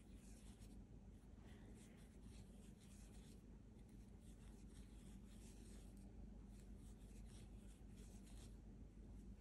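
Faint scratchy rustle of a metal crochet hook drawing acrylic yarn through half double crochet stitches, in soft strokes about once a second, over a steady low hum.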